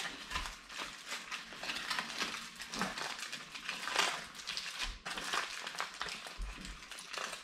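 Aluminium foil parcel being crinkled and pulled open by hand: an irregular crackling rustle.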